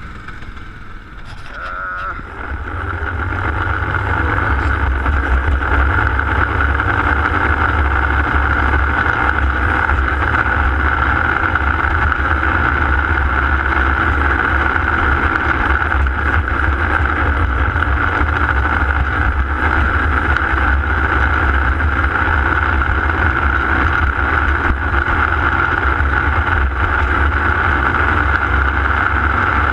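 Yamaha Grizzly 700 ATV engine under way, getting louder over the first few seconds, then running steadily at an even pace.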